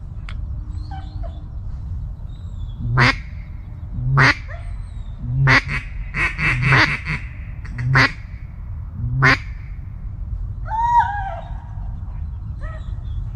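Mallard-style quacking: a loud single quack about three seconds in, another a second later, then a quick run of quacks, then two more spaced single quacks. A softer call falling in pitch follows near the end.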